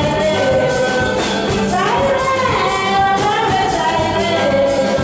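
A woman singing into a microphone through a sound system, her voice gliding between long held notes over music with a steady percussion beat.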